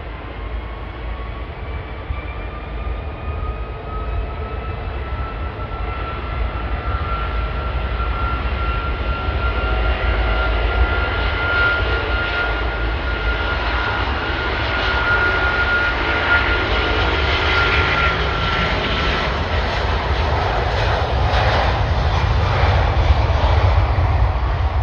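Jet airliner's engines at an airport runway, growing louder, with a high whine that rises in pitch and holds before fading out over a steady low rumble.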